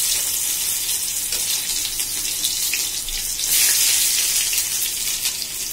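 Chopped onion sizzling in hot oil in a pan for a dal tadka, a loud steady high hiss with fine crackling that swells again about three and a half seconds in.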